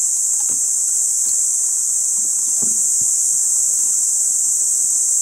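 Loud, steady, high-pitched chorus of insects, with a few faint knocks under it.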